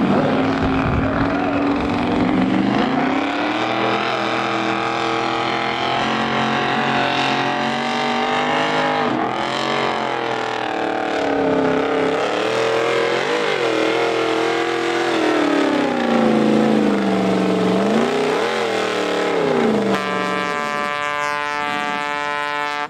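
Engine of a pulling truck or tractor under heavy load as it drags the weight sled, its pitch rising and falling as the revs surge. Near the end it holds one steady pitch.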